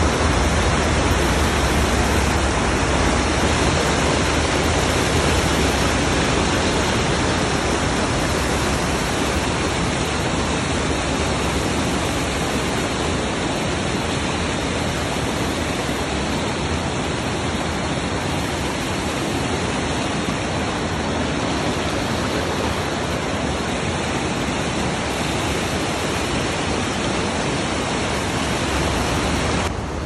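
River rapids: whitewater rushing steadily over and between boulders, loud and close.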